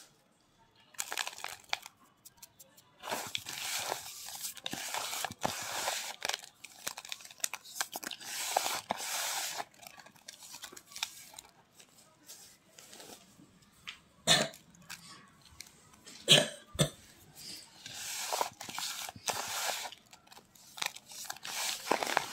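Fingers squeezing and crumbling kerosene-dampened naphthalene (mothball) powder in a bowl: irregular crunching and scrunching, with a couple of sharper, louder cracks a little past the middle.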